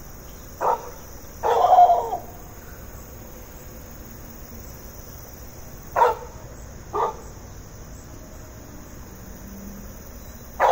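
A dog barking: a short bark, then a longer drawn-out one, then after a pause of several seconds two more barks about a second apart.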